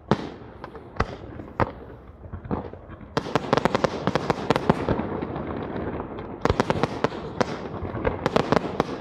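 Fireworks display: aerial shells bursting with sharp bangs, a few single reports at first. About three seconds in it turns into a dense, rapid crackle of many small bangs, which eases briefly near six seconds and then starts up again.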